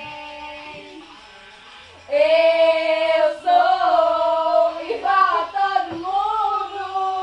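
Young girls singing a pop song loudly without accompaniment, holding long wavering notes; the singing is softer for the first two seconds, then jumps in loudness.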